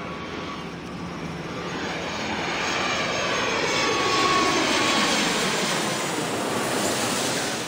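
Airplane engine flying past: a steady engine noise that swells to its loudest about halfway through, then fades, with faint tones sliding down in pitch as it passes.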